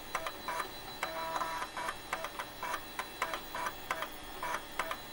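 End-screen outro music: a rhythm of short clicks and brief pitched notes, with a thin steady high tone underneath.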